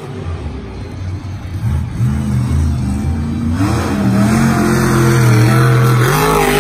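Megalodon monster truck's supercharged V8 running hard across the dirt, audible from about two seconds in at a steady pitch. Near the end the pitch wavers and bends as the truck launches off a ramp.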